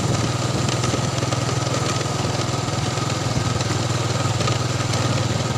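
Small motorcycle engine running at a steady speed, an even low hum with a fast firing rhythm.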